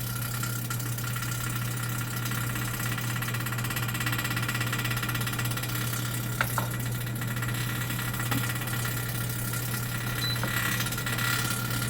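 A new oven's convection fan running with a steady rattling hum. The rattle is not expected; she wonders whether it comes from the oven being new and the fan being switched on for the first time.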